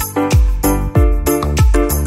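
Instrumental background music with a steady beat: a deep kick drum hits a little under twice a second under sustained chords.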